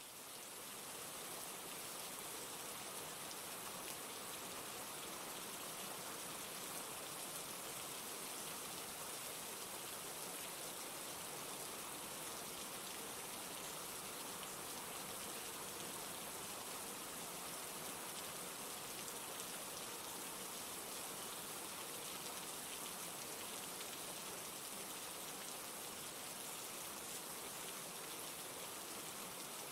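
Steady rain falling with an even hiss of drops on surfaces, fading in over the first second and then holding constant.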